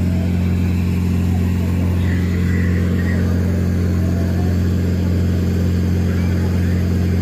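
Steady low engine hum at a constant pitch, with no revving or change.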